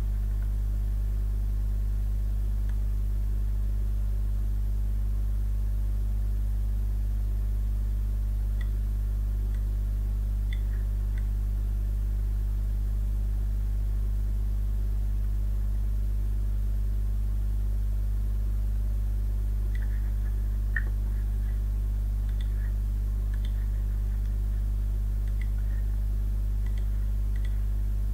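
Steady low electrical hum in the recording, with a few faint clicks of a computer mouse scattered through it.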